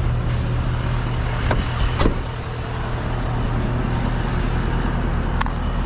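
Truck engine idling, a steady low hum, with a few sharp clicks and knocks; the loudest is about two seconds in.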